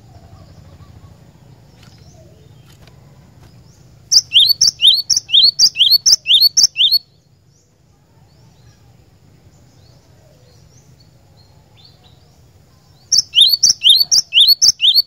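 Cinereous tit (glatik batu) singing: two bouts of a rapid, ringing string of paired high notes, each note sweeping quickly down in pitch. The first bout starts about four seconds in and lasts about three seconds; the second starts near the end.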